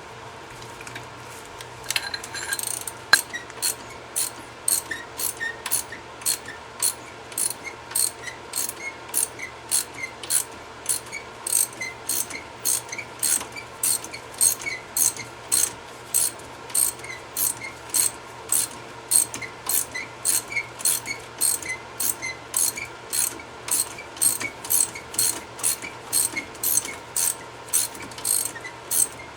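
Ratchet wrench with an Allen-head socket clicking in a steady rhythm, about two clicks a second, as it is swung back and forth to back out a front brake caliper bolt. The clicking starts about two seconds in.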